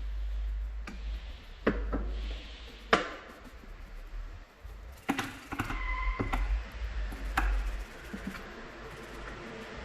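Scattered light knocks and clicks of parts or tools being handled, with a short two-tone squeak about six seconds in, over a steady low rumble.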